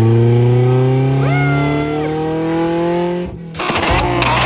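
BMW 318is 1.8-litre four-cylinder engine held at high revs, its pitch climbing slowly, with a short high squeal over it about a second in. The sound cuts off abruptly near the end and gives way to a noisy jumble.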